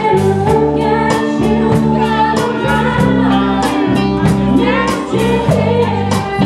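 Live pub band playing: singing over electric bass and a drum kit keeping a steady beat.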